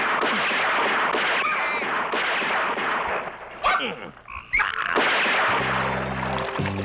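Cartoon sound effects: a dense barrage of shotgun fire mixed with ducks squawking, which breaks up about three and a half seconds in. Music with a low bass line starts near the end.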